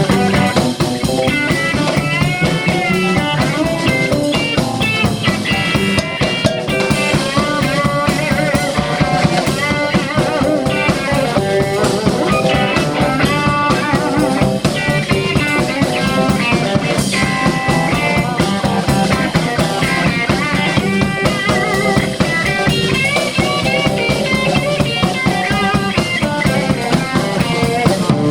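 Blues band playing live in an instrumental passage: a guitar playing bending, wavering lead lines over a steady drum beat, with bass and a second guitar.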